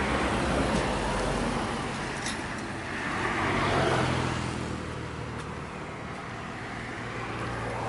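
Highway road traffic going by, one vehicle passing loudest about three to four seconds in and then fading, over a steady low hum.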